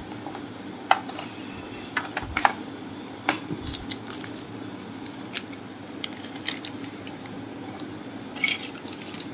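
Small hard-plastic action-camera mount parts clicking and tapping as they are handled and fitted together, a few sharp irregular clicks, with a brief crinkle of a plastic zip-lock bag near the end.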